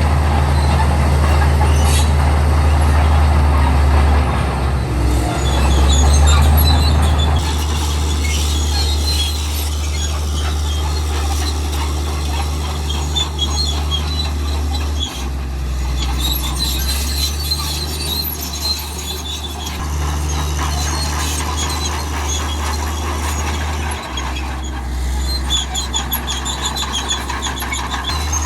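Komatsu D65E crawler bulldozer's diesel engine running, with high metallic squealing and squeaking from its steel tracks. The engine is louder for the first several seconds, then eases.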